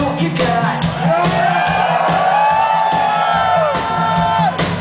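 Rock band playing live, heard from the audience in a hall: drums and bass under a female lead vocal that holds one long sung note, falling away near the end.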